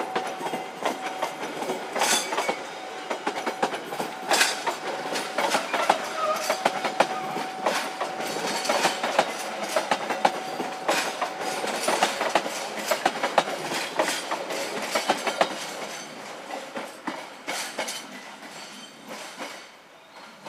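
Passenger train coaches rolling past over track switches and rail joints, the wheels clacking in a rapid, irregular series. A thin steady squeal runs under the clacking for about the first twelve seconds. The sound fades near the end as the last coach moves away.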